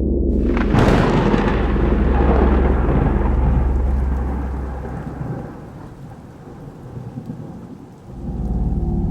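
A sharp thunderclap about half a second in, followed by rolling thunder that fades away over several seconds. A low droning tone comes back near the end.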